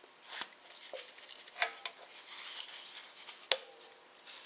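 Caulking gun clicking and rattling as it is worked to lay a thin bead of construction adhesive, with light handling noise. The sharpest click comes about three and a half seconds in, with a brief ring.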